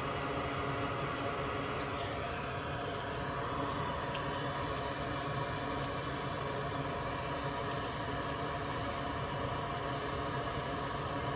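Steady fan-like whir and hiss, with a few faint clicks between about two and six seconds in.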